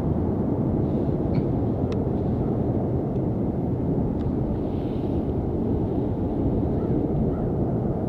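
Distant Airbus A310 jet airliner on approach, heard as a steady low rumble.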